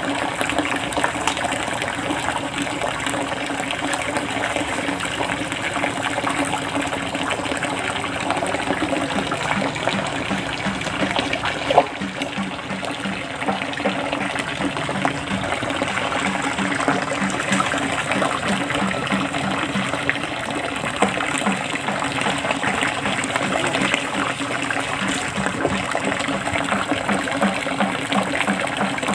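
Water running steadily, a continuous gushing and trickling. There is one sharp knock a little before halfway.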